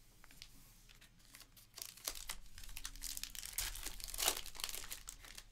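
Foil wrapper of a Panini Illusions football card pack crinkling and tearing as it is ripped open by hand, in a run of crackles starting about two seconds in and loudest near the end.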